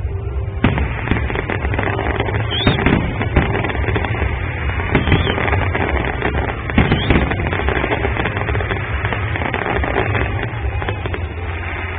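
Fireworks going off: a dense crackling with louder bangs every second or two, over a steady low rumble.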